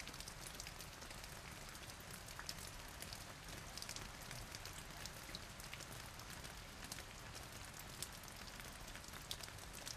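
Faint outdoor ambience: a low hiss dotted with scattered light crackles and ticks, with no clear rhythm.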